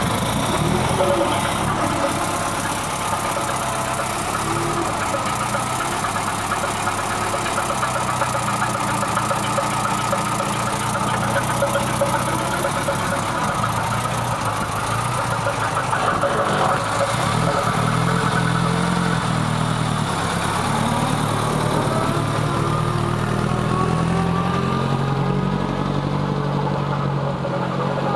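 1927 Standard tourer's engine running, idling at first and then pulling the car away, its note rising and falling in the last third.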